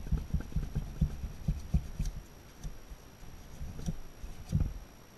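Irregular dull thumps and knocks from handling a motorcycle engine crankcase half on a workbench, bunched in the first couple of seconds with one more near the end, and two faint sharp ticks of a small metal tool against the case.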